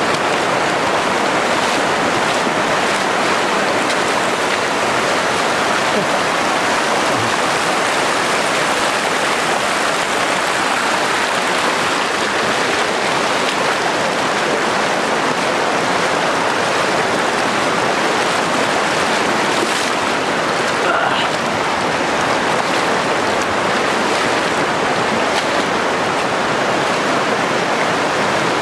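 Shallow river flowing steadily over stones and boulders, an even rushing of water with no break.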